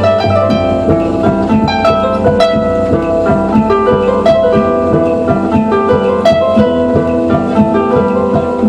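Electric harp playing a flowing passage of quick plucked notes that ring into each other over sustained low bass notes.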